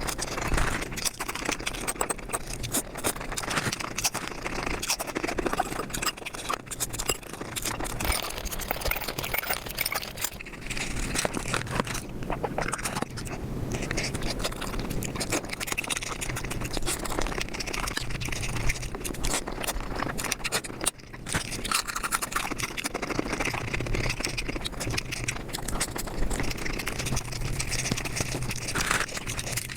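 Mukbang eating sounds sped up about five times: a continuous rush of rapid chewing, smacking and scraping mouth noises.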